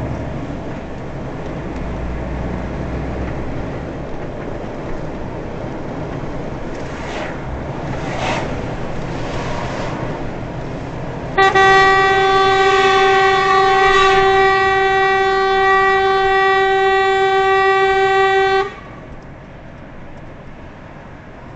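A vehicle horn sounds one long steady blast of about seven seconds, starting about eleven seconds in, over the steady road and engine noise heard from inside a truck cab.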